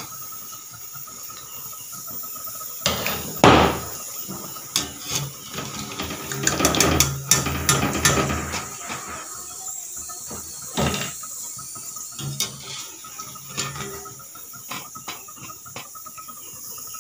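Small-shrimp pakoras sizzling in hot oil in a metal karahi, while a wire spider strainer scrapes and clinks against the pan as they are lifted out. The strainer knocks hardest about three and a half seconds in, with a run of quick clinks a few seconds later and another knock near eleven seconds.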